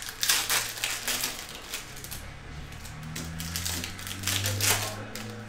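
Stacks of baseball cards being handled and knocked against a tabletop: an irregular clatter of sharp clicks and taps. A low steady hum comes in underneath about two seconds in.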